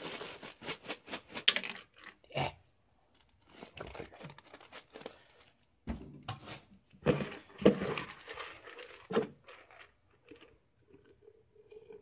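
Wet window screen wrapped around a batch of small lead bullet cores being handled out of soapy water: crinkling of the screen and clicks and knocks of the cores, in two bursts of several sharp sounds each.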